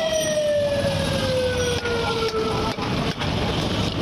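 A siren that rises briefly, then winds slowly down in pitch for about three seconds over steady market din. A few dull knocks fall in the second half as a wooden club strikes the fish-cutting blade.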